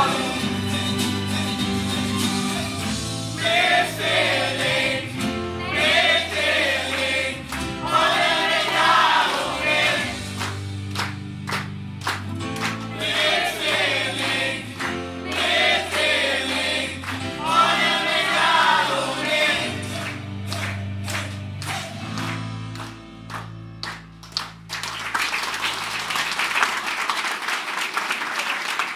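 A mixed choir singing a song to a strummed acoustic guitar with sustained low accompaniment. The song ends about 25 seconds in and the audience applauds.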